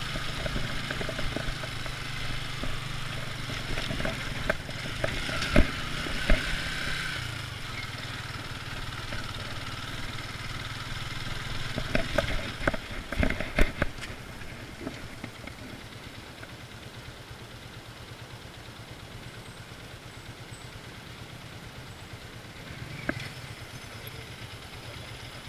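Motorcycle engine idling steadily, with a few sharp knocks about six seconds in and a cluster of clatters around twelve to fourteen seconds in; the sound is quieter after that.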